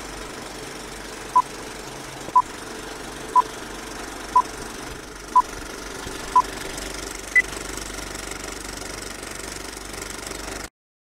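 Vintage film-leader countdown effect: a film projector's steady clatter and hiss, with a short beep once a second for six beeps, then one higher-pitched beep. The sound cuts off suddenly near the end.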